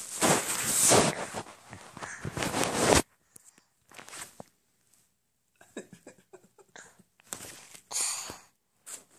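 Loud rustling and scraping of a phone being handled with its microphone rubbed and covered, cutting off abruptly about three seconds in. Scattered faint clicks and taps follow.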